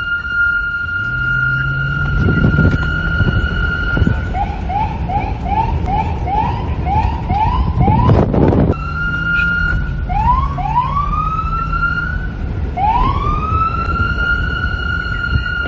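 Police car's electronic siren. It holds a steady high tone for the first few seconds, switches to a fast yelp of about two to three rising whoops a second, gives a brief loud rush just past the middle, then rises in a few wails that settle back on the steady tone. Wind noise and a low rumble run underneath.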